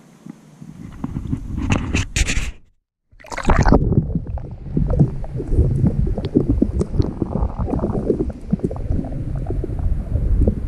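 Water splashing over a camera's microphone as it goes under the surface. After a brief dropout comes the underwater sound of a spring run heard through the camera: a dense low rumble with many small knocks and clicks.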